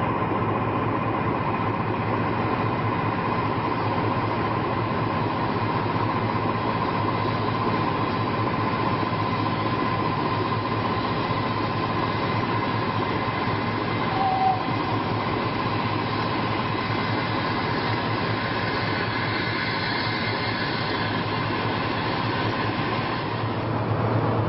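BR Class 14 diesel-hydraulic shunter D9516 idling steadily on its Paxman diesel engine, with steam noise from a nearby line mixed in and a brief high tone about halfway through. Near the end it cuts to a Freightliner Class 70 diesel locomotive idling, with a deeper drone.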